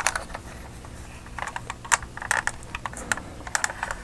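Small straight-blade screwdriver clicking and scraping against the wheel hub of a 1/18 scale diecast model car while prying at a press-fitted wheel, a run of light, irregular clicks that comes thicker in the second half. The wheel is not coming loose.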